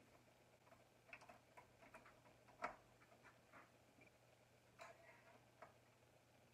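Near silence broken by faint, scattered clicks and taps of hands working small metal parts on an AMI E-120 jukebox record changer, the sharpest about two and a half seconds in and again near five seconds, over a faint steady hum.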